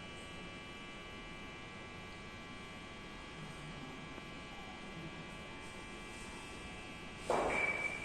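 Steady electrical hum and buzz with several fixed tones. About seven seconds in, a sudden short rush of noise lasting under a second is the loudest thing.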